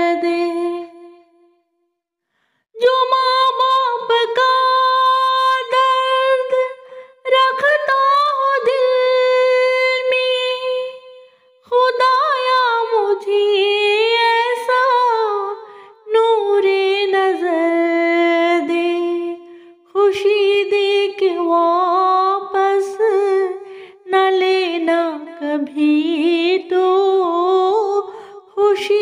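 A woman singing a devotional dua unaccompanied, in long drawn-out phrases with held notes and ornamented turns, pausing briefly for breath between phrases.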